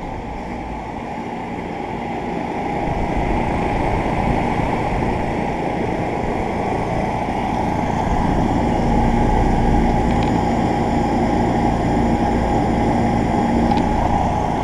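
2011 Rheem Value Series central air conditioner condensing units running: the steady rush of the condenser fan, growing louder over the first few seconds, with a low steady hum joining about 8 seconds in.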